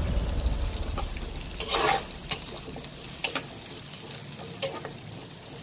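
Chopped onions and cumin seeds sizzling in hot oil in a kadai, with a spatula scraping and stirring through them several times, the longest scrape about two seconds in.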